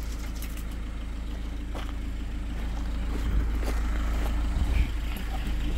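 Iveco Daily tipper truck's engine idling with a steady low hum, with a few faint crunches of footsteps on gravel.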